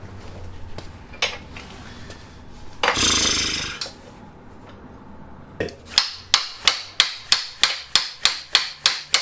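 Hand tool work on a tight chain-adjusting bolt: a harsh metal scrape about three seconds in, then a ratchet wrench clicking in a steady rhythm, about three clicks a second, as the socket is worked on the bolt.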